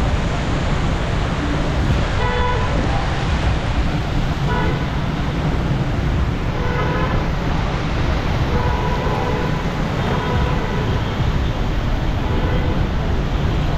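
Busy road traffic with short vehicle horn toots every second or two over a steady low rumble.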